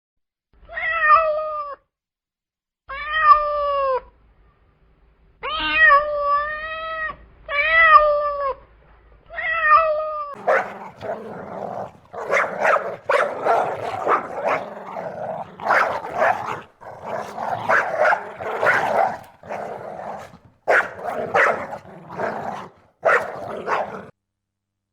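A cat meowing five times, each meow a drawn-out, pitched call about a second long. About ten seconds in, it gives way to a continuous run of rough, noisy animal sounds that does not let up.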